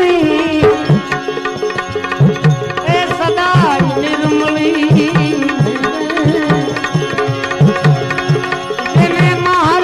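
Instrumental interlude of a devotional bhajan: tabla keeping a steady, quick rhythm, whose deep bass strokes bend in pitch, under a melodic instrument that slides between notes over a held accompaniment.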